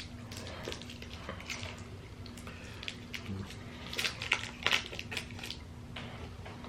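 Crinkling and crackling of candy wrappers being handled and opened. The crackles come in scattered short clusters, loudest from about four seconds in.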